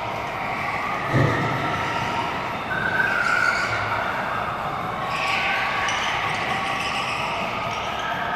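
Go-karts driving around an indoor track, their motors whining up and down, echoing in a large hall. A dull thump comes about a second in.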